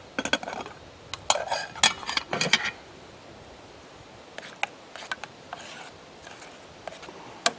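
Metal spoon scraping and clinking against a cooking pan: a burst of scraping and clinks for the first few seconds, a quieter stretch with a few scattered clicks, then a quick run of sharp clinks near the end.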